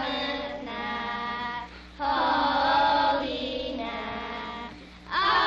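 A group of schoolchildren singing a Christmas carol together, in long held notes with short breaths between phrases.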